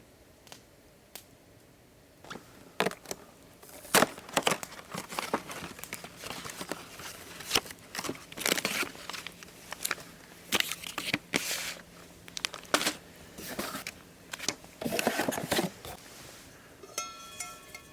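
Handling noise: irregular rustling and crinkling, like packaging or a bag being worked, mixed with scattered sharp clicks and taps. Near the end a few short, steady high tones begin.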